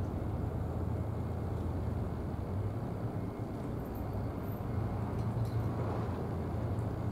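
A steady low engine rumble that holds even throughout.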